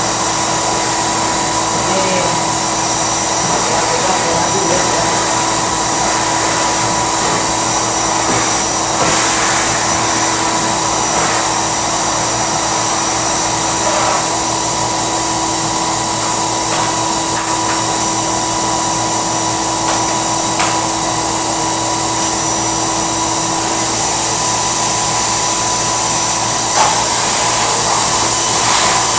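Drum-type canister vacuum cleaner running steadily: a constant rushing noise with a steady hum through the hose.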